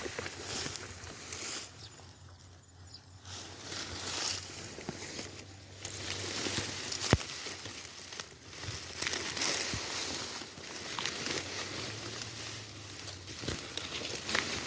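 Footsteps rustling through grass and field vegetation as someone walks along, with a sharp click about seven seconds in.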